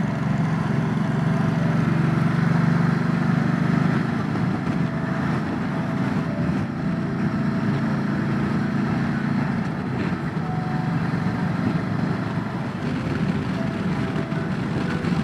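Motorcycle riding steadily at road speed: a constant engine drone mixed with heavy wind noise on the microphone from a strong crosswind.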